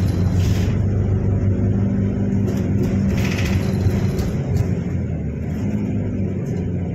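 A city bus's engine running as it drives, heard inside the cabin as a steady low hum with road noise.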